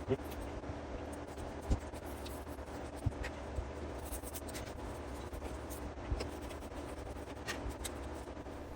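Light scratching and rubbing as a TV remote's sticky circuit board is scrubbed clean, with a few small clicks, over a steady low hum.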